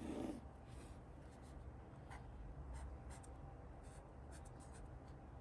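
Faint pen and paper sounds from working in a paper planner: scattered light scratches and small taps, with a soft bump at the very start.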